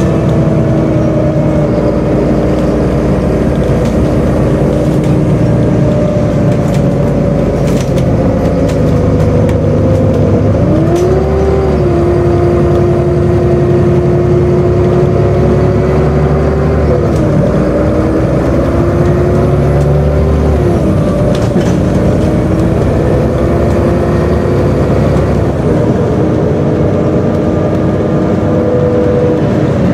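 Volvo B7LA articulated bus's diesel engine and drivetrain running, heard from inside the passenger saloon: a steady low rumble with a whine that rises and falls in pitch a few times around the middle as the bus speeds up and slows.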